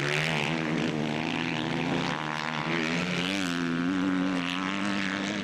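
Motocross bike engines running hard at racing speed, a steady high drone whose pitch rises about two seconds in.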